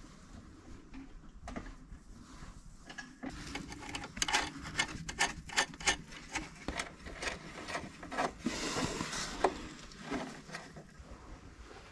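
Small metallic clicks and taps, several a second from about three seconds in, with a short scraping rustle near the end, as hands and tools work on nuts and threaded mounting rods under a van.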